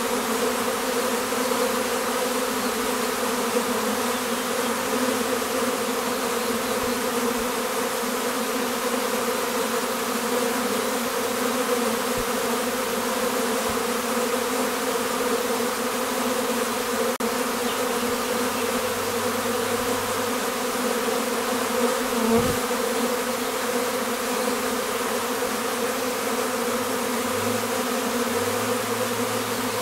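Honeybees buzzing steadily at a sugar-syrup feeder, a continuous even hum of many wings, with one brief low bump about two-thirds of the way through.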